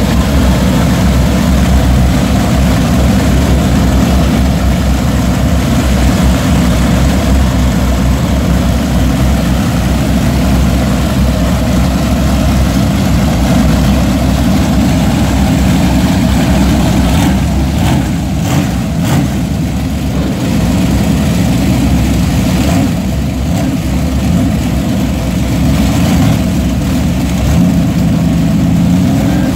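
Several Boss Hoss V8 motorcycles idling together: a loud, steady, deep engine sound.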